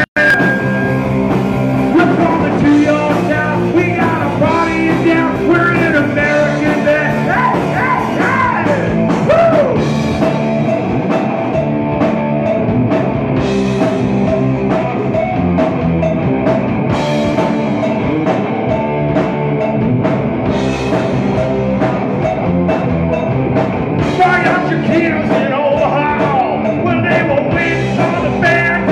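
Live rock band playing: a male lead singer over electric guitar and drum kit.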